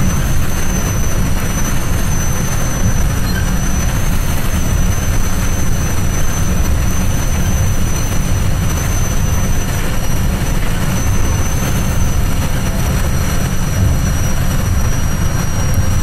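Metra commuter train running along the track, heard from the front of the leading car: a steady, loud low rumble with no horn or separate wheel clicks.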